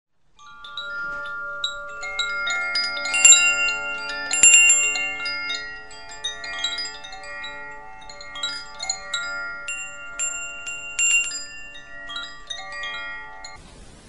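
Wind chimes ringing: many overlapping struck tones, each ringing on for seconds, with the loudest clusters of strikes about three and four and a half seconds in.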